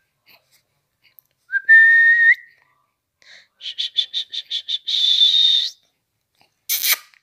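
Someone whistling: a steady note with a small upturn at its end, then a quick run of about seven short chirps and a higher, breathier held note. A short noisy burst near the end.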